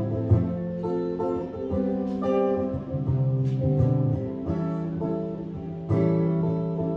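Guitar playing an instrumental passage, sustained low notes and ringing chords that change about every second.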